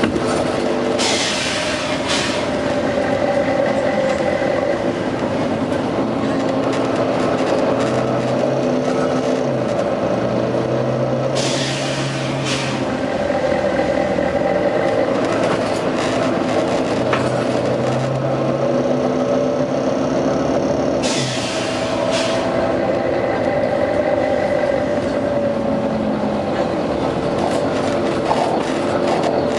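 Volvo B9TL double-decker bus's six-cylinder diesel engine running, its pitch rising and falling. Three short hisses of compressed air from the bus's air system come about ten seconds apart.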